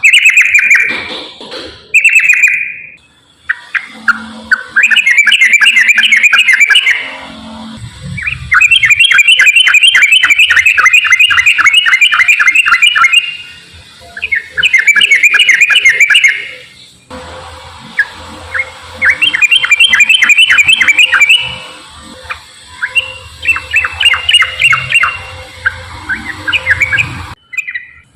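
Yellow-vented bulbul (trucukan) singing in rapid chattering phrases, each a fast run of repeated notes, in several loud bursts of a few seconds separated by short pauses.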